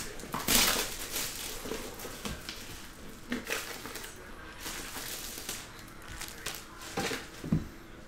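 Cellophane shrink wrap being torn and peeled off a cardboard trading-card box, crinkling in uneven bursts, loudest about half a second in, with a couple of short knocks of the box near the end.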